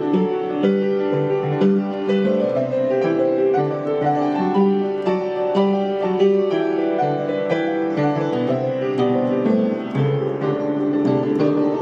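Solo piano playing a flowing, continuous run of quick notes over a steady bass line.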